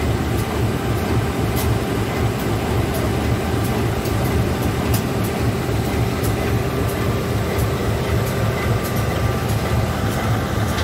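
Diesel locomotive's engine running steadily at close range: a loud, even, deep hum.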